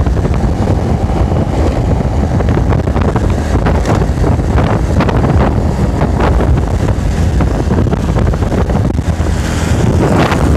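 Wind rushing over the microphone of a phone carried on a moving motorbike: a loud, steady low rumble with riding noise under it, growing a little louder near the end.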